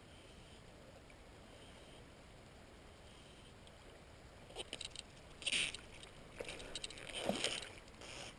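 Faint steady river background, then from about halfway a run of clicks, scrapes and short rustling bursts from fly line being stripped and the fly rod being handled, loudest about two-thirds of the way in.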